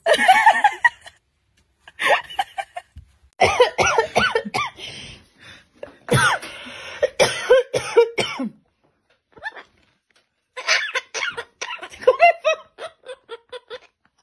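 Voices making short cough-like bursts, then a quick run of laughter-like pulses near the end.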